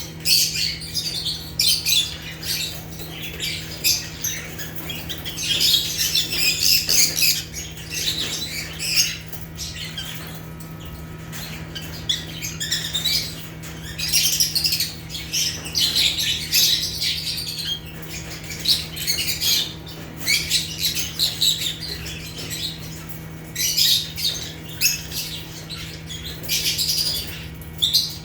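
A group of African lovebirds (Agapornis) chattering: dense, rapid, shrill chirps and squawks in bursts, with a couple of brief lulls, over a steady low hum.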